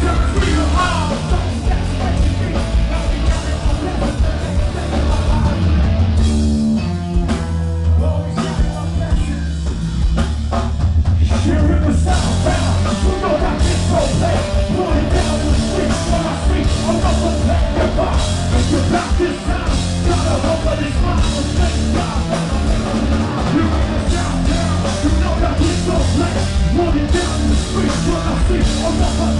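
Rap-metal band playing live: distorted electric guitars, bass and drum kit with a vocalist singing into the microphone. The cymbals and upper end thin out for a few seconds about a quarter of the way in, then the full band comes back in.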